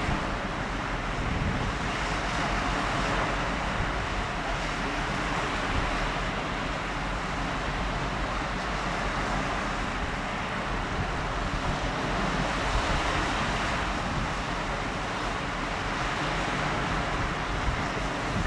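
Steady rushing outdoor background noise, with wind buffeting the microphone in an uneven low rumble.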